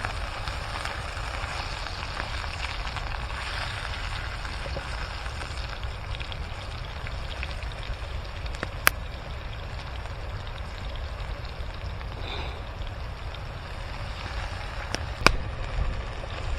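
Campfire crackling over a steady rush of running water and a low rumble, with two sharp snaps, one about nine seconds in and one near the end.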